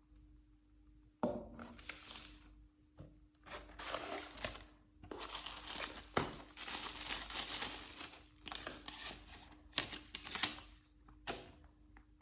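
Phone packaging being handled: irregular crinkling and rustling of wrap or paper, with a few sharp crackles, starting about a second in.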